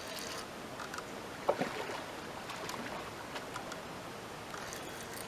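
Water splashing as a hooked carp is played at the river's edge, with a few short sharp splashes, the strongest about one and a half seconds in, over a steady hiss of water.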